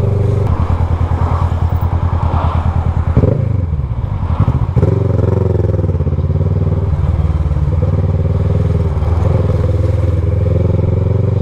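Kawasaki Versys 650 parallel-twin running through a loud aftermarket exhaust, with a quick throttle blip about three seconds in, after which the pitch drops and picks back up. The rev is a warning to a car drifting into the filtering lane.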